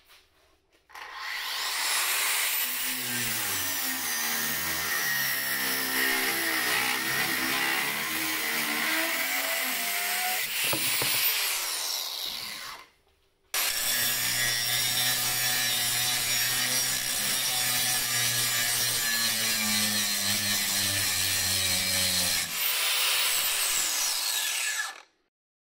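Festool AGC 18 cordless angle grinder with a brushless motor, cutting and grinding steel bar in two long passes. Each pass starts with the motor spinning up and stops abruptly, with a short break about halfway through.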